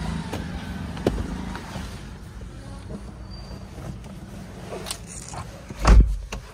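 Low, steady hum of a car's engine heard from inside the cabin, fading after about two seconds. A single heavy thump follows near the end.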